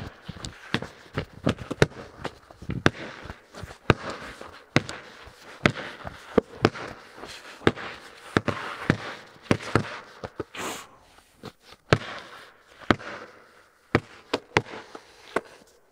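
Basketballs bouncing on a bare concrete floor: a run of sharp, irregular thuds, each ringing briefly off the metal walls, with a ball dribbled several times near the middle.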